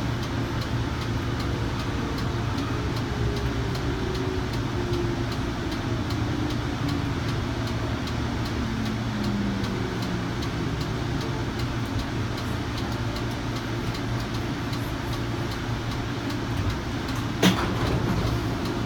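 Hudson-Bergen Light Rail car (Kinki Sharyo light rail vehicle with an IGBT VVVF drive) slowing into a station: a steady rumble of the running gear, with the traction motor and inverter whine gliding down in pitch as the train brakes, fading out about halfway through. A single sharp clack near the end.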